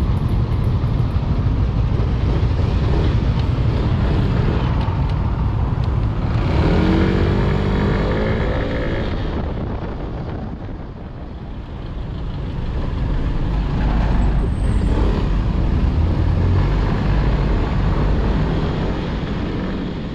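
Riding noise from a Wmoto Gemma 125 scooter on the road: heavy wind rumble on the microphone over the engine running. About seven seconds in, an engine note rises in pitch for a couple of seconds, and the noise eases off briefly around eleven seconds in.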